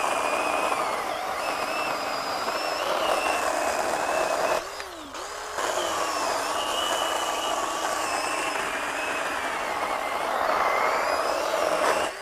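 Craftsman 20V 6-inch cordless pruning chainsaw with a brushed motor, its chain cutting through a 4-inch limb at the saw's maximum capacity while pressed into the wood. The motor's whine wavers under load, winds down briefly about five seconds in and spins back up, then drops away near the end as the cut goes through.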